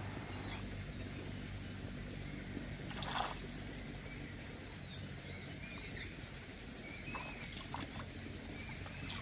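Small birds chirping in short, scattered calls over a steady low outdoor background, with one short splash-like noise about three seconds in and a few light clicks near the end.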